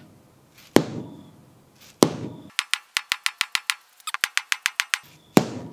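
A rubber mallet striking a car windshield: three heavy knocks on the glass, each with a short ring-out. Between the second and third knock comes a quick run of thin, high ticks, about eight a second.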